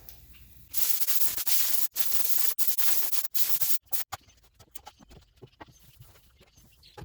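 Compressed-air hose blow gun blasting dust off a toolbox before painting: a loud hiss in several short bursts over about three seconds, then it stops and only faint taps and clicks remain.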